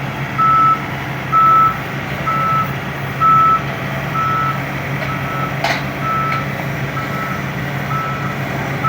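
A wheel-type backhoe's backup alarm beeping steadily, about once a second, over the diesel engine running as the machine reverses during unloading. A single sharp knock is heard about halfway through.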